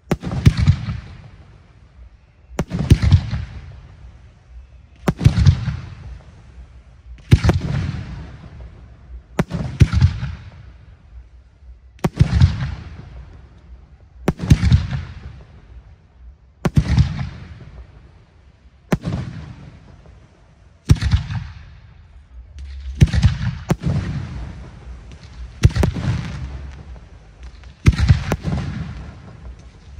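Fireworks display: aerial shells bursting one after another, a sharp loud bang about every two seconds, each trailing off over a second or so before the next.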